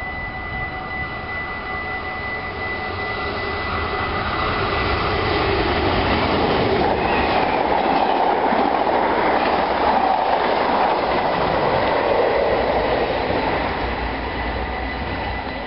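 NS VIRM double-deck electric intercity train running through the station at full line speed, wheels on rail. The noise builds for a few seconds, stays loudest for several seconds as the carriages pass, then fades as the train moves away.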